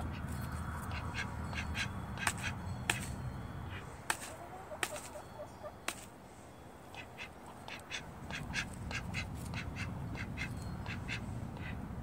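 A silver-laced Wyandotte hen's beak tapping on a plastic tub as she pecks mealworms from it. The taps come as quick runs of sharp clicks, one run near the start and another in the second half.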